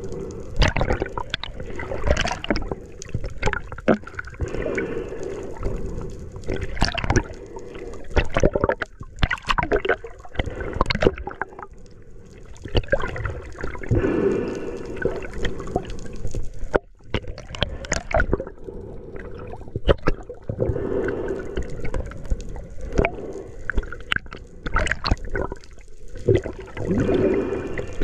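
Water gurgling and sloshing as heard from a camera in the water, with many irregular clicks and pops.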